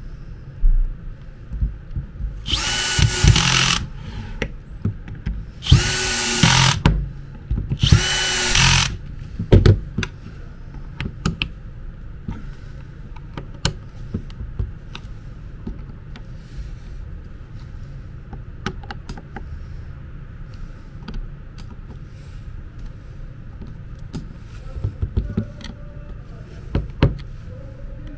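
Makita DDF485 18-volt brushless cordless drill driver running unloaded in three short runs of about a second each in the first nine seconds, spinning up quickly each time: a test run of the freshly repaired and reassembled drill. After that come scattered light clicks and taps from handling the tool.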